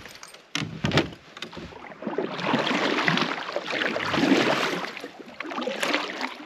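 Kayak paddle knocking a few times against the hull, then paddle strokes splashing and water rushing along the kayak as it is paddled.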